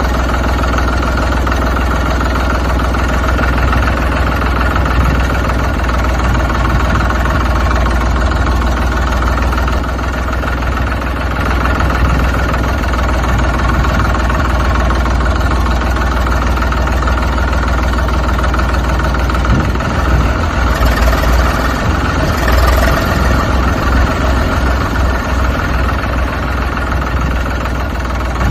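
Tractor engine sound running steadily at idle, with a rougher, uneven stretch about twenty seconds in.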